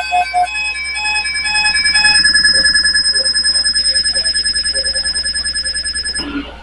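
Weather alert radio alarm sounding for an incoming alert: a repeating beep pattern stops about half a second in, then a high, rapidly pulsing electronic tone runs on and cuts off suddenly about six seconds in.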